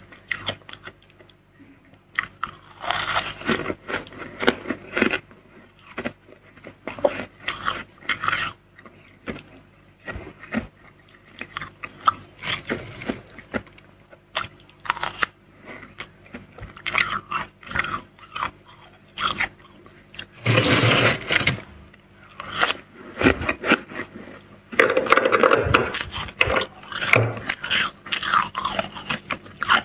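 Spoon scraping and crunching through soft freezer frost in short, irregular strokes, with a couple of longer, louder scrapes past the middle.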